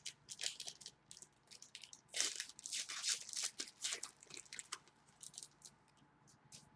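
Crinkling and rustling of trading-card packs and cards being handled, in quick dense strokes for about the first five seconds, then only a few.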